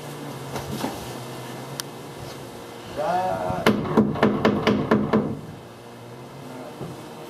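Hammer tapping in a quick run of about eight light blows, setting the thin wooden interior wall skin onto the studs at a spot where the skin was sticking out.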